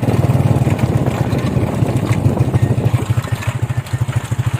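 Honda 125 motorcycle's single-cylinder four-stroke engine running with a steady, rapid exhaust beat.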